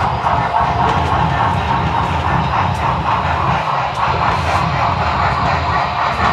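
HO scale model trains running on the layout: a steady mechanical drone with a few faint clicks.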